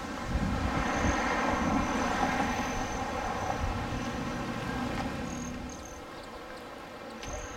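A passing vehicle: a rushing rumble that swells about half a second in and fades away after about five seconds. A thin high whine comes and goes.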